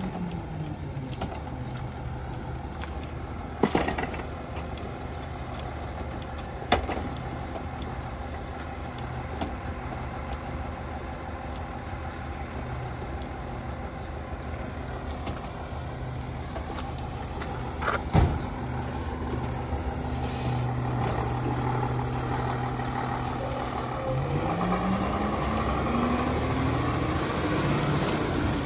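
Autocar ACX rear-loader garbage truck running while it packs bulk trash and wood, with a few sharp cracks and bangs from the hopper. Near the end the engine revs up as the truck pulls away.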